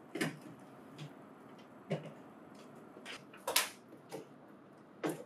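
Light knocks and clicks of a plastic-cased printer staple finisher being handled and shifted on a tabletop, about seven at uneven intervals, the loudest about three and a half seconds in.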